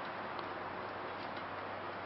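Steady background hiss with a low hum, and a few faint ticks scattered through it.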